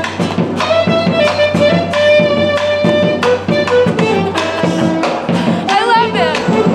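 Andean folk band playing: acoustic guitar and a drum keeping a steady beat under a sustained melody line, with a brief wavering high sound near the end.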